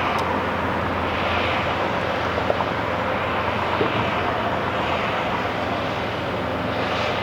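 Steady vehicle noise: a continuous engine rumble with a broad hiss, swelling and easing slightly a few times.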